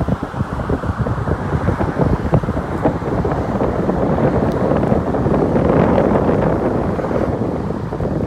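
Wind buffeting the microphone over the steady rush of road traffic crossing the Lions Gate Bridge; the noise swells about four to six seconds in.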